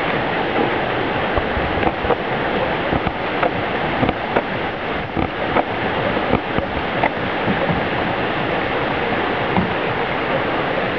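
Steady rush of river water, with scattered short clicks between about one and seven seconds in.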